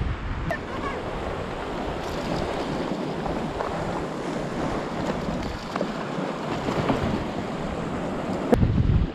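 Surf washing and breaking around shoreline rocks, a steady noisy wash, with wind buffeting the microphone in a louder low rumble near the end.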